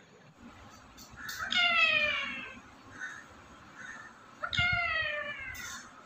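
Rose-ringed parakeet giving two drawn-out calls, each sliding down in pitch: the first about a second in, the second a few seconds later.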